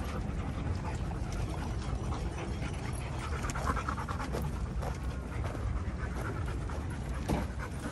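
Several dogs panting.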